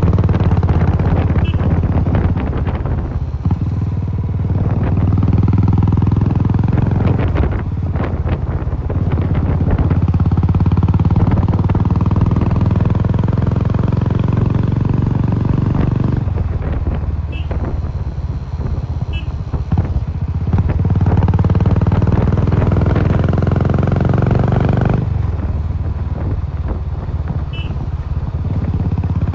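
Royal Enfield Classic 350's single-cylinder engine running through an aftermarket Cobra exhaust, heard onboard while riding. The exhaust note swells under throttle several times and drops back between, with the engine thumping steadily.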